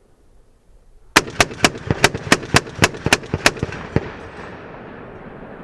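M2 .50 caliber heavy machine gun firing a burst of about ten rounds at about four shots a second, starting about a second in. The reports echo away across the range after the last shot.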